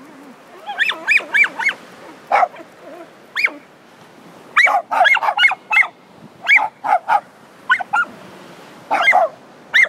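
A dog giving short, high-pitched yips that rise and fall in pitch, mostly in quick runs of two to six with brief pauses between.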